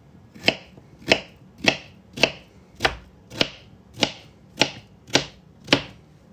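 Kitchen knife chopping through a cucumber into a plastic cutting board: about ten even strokes, roughly two a second, each a sharp knock on the board.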